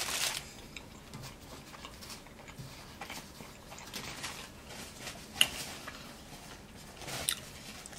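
A person chewing a mouthful of cheeseburger close to the microphone: soft, sparse mouth sounds with a few small clicks, two sharper ones about five and a half and seven seconds in.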